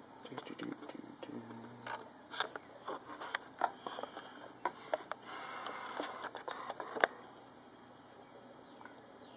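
Handling noise of a handheld camera being moved about: irregular clicks, taps and rustling, with one sharp knock about seven seconds in, after which it goes quieter.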